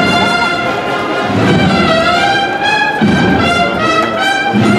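Brass band playing a Holy Week processional march, with sustained trumpet and trombone notes that change every second or so.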